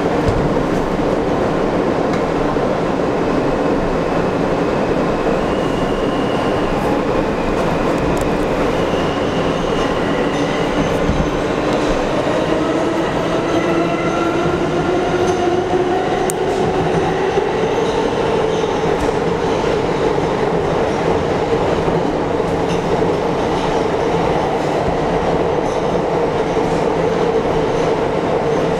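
R160 subway train running at speed through a tunnel, heard from the front cab window: a steady rumble of wheels on rail. The traction motors' whine rises gradually in pitch through the middle as the train gathers speed, then holds steady.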